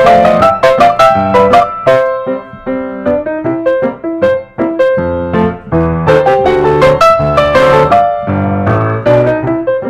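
Background piano music: a melody of struck notes over lower chords.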